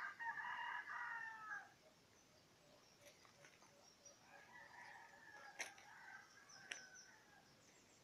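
A rooster crows once at the start, a held call of about a second and a half, dropping at the end; a second, fainter crow follows from about four seconds in. Two sharp clicks sound near the middle and the end of that second crow.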